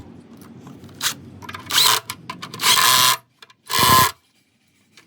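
Four short, loud bursts of tool noise, each under half a second and about a second apart, during repair work on a car's suspension link bushing, over a low rumble in the first two seconds.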